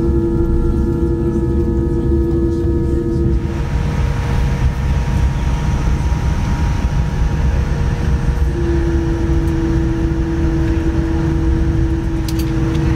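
Jet airliner cabin noise as a Boeing 787-9 taxis after landing: a steady low rumble with a held engine whine. The whine drops out for a few seconds in the middle while a louder rushing noise takes over, then comes back.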